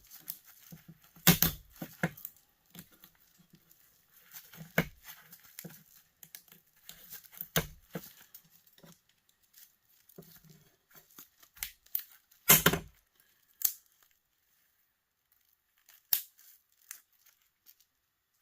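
Parts of a dismantled electric heater being snapped and torn apart by hand: a series of sharp snaps with tearing and crinkling between them, the loudest snap about two-thirds of the way through.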